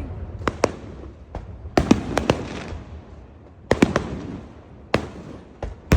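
Fireworks bursting: a series of sharp bangs in clusters of two to four, each trailing off in a rumble.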